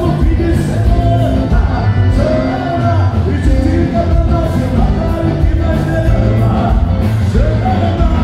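Live band playing loudly: a male singer singing over accordion and electric bass, with a heavy steady bass line.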